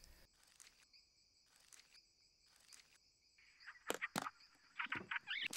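Faint night-insect chirring as a jungle soundscape. About four seconds in come two sharp clicks, followed near the end by a quick run of short, high, wavering chirping calls.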